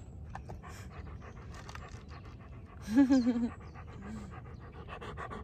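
Airedale terrier panting rapidly with its tongue out, close to the microphone, after a walk. About three seconds in, a brief wavering vocal sound rises over the panting.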